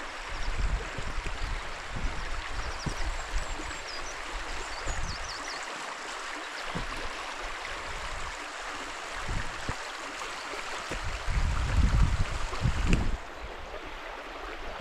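Hill burn running over stones: a steady rush of water, with low rumbling bursts that are strongest a couple of seconds before the end.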